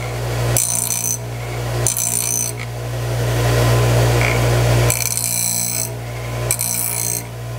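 Craftsman 6-inch variable-speed bench grinder running steadily at its top speed with a coarse 46-grit wheel. A steel jack plane iron is touched lightly to the wheel four times, and each contact gives a high hiss lasting under a second as the corners are ground back to camber the edge.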